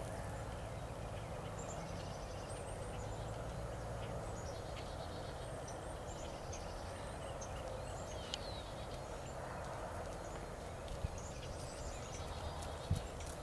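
Outdoor ambience: steady wind rumble on the microphone with small birds chirping repeatedly in the background, and a couple of faint thumps near the end.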